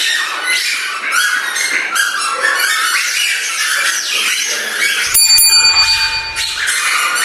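Squeaker toys tied to the players' feet squeaking rapidly with every step, many short squeaks overlapping. About five seconds in, a steady high tone sounds for about a second and a half.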